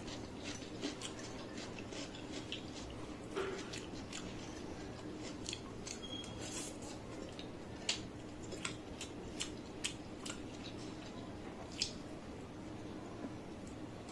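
A person chewing food close to the microphone, with irregular sharp wet clicks and smacks of the mouth.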